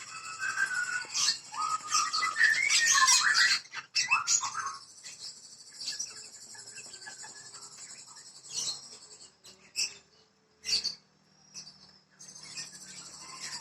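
White-rumped shama (murai batu) singing: a loud run of varied whistled phrases for the first five seconds or so, then quieter scattered notes and a few sharp clicks. A steady high hiss runs underneath.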